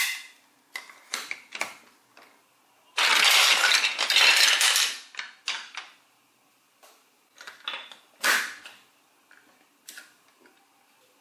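Hard plastic toy building blocks clicking and clattering as pieces are handled and pressed together, with about two seconds of continuous rattling a few seconds in as loose blocks are stirred in the pile.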